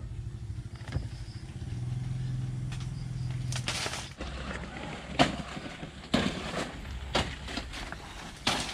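Dry banana leaves and undergrowth crunching and rustling underfoot as someone pushes through banana plants, in a handful of short bursts over a low steady rumble.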